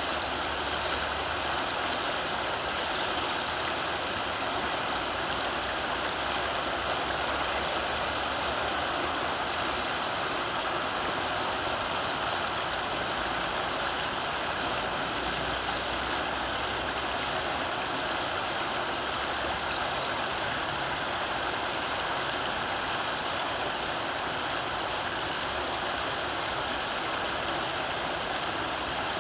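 River water running steadily, with short high bird chirps every few seconds.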